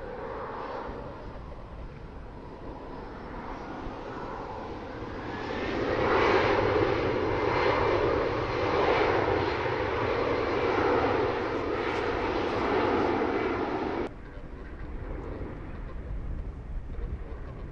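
Airbus A380's Rolls-Royce Trent 900 turbofans running at taxi power as the aircraft rolls past. The engine noise swells louder about five seconds in, then drops suddenly near the end.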